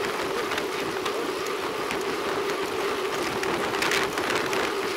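Wind rushing over a bike-mounted rear camera and tyre noise on a concrete road while riding: a steady hiss with a constant low hum underneath and a few brief knocks.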